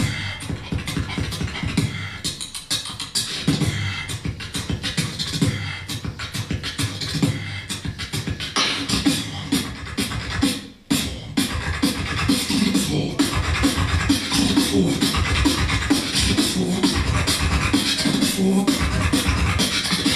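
Beatboxing: a beatboxer's rhythmic pattern of sharp snare and hi-hat clicks over deep bass tones. It breaks off for a moment about halfway through, then comes back fuller and denser.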